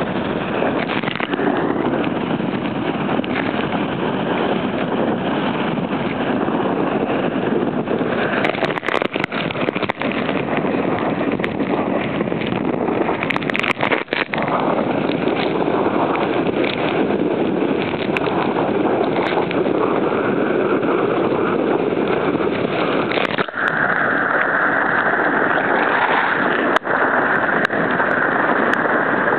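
Force 9 gale wind blowing hard across the microphone over heavy breaking surf: a loud, steady rush with a few brief dropouts and knocks where the gusts buffet the mic.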